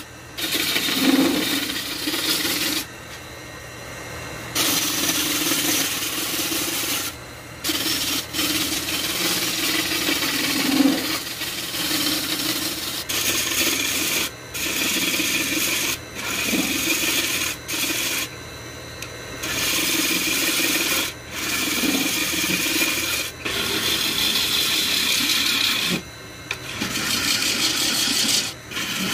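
Gouge cutting a spinning root-burl vase blank on a Rikon wood lathe: a rough scraping hiss in passes of one to several seconds, broken by short pauses where the tool comes off the wood. A low steady hum from the running lathe carries on through the pauses.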